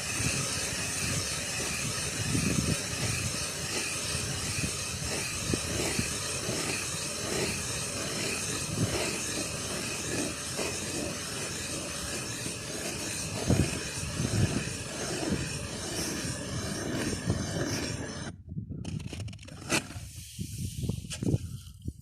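Electric ice auger running steadily, its motor whining with a loud hiss as the auger bores through thick ice. It stops about 18 seconds in, leaving scattered knocks and clicks.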